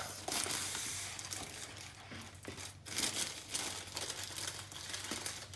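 Thin plastic bag of seed potatoes crinkling and rustling as hands rummage in it, in two bouts with a short lull in the middle.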